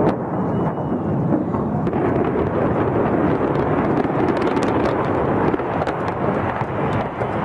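A continuous deep rumbling noise at a steady level, without clear breaks.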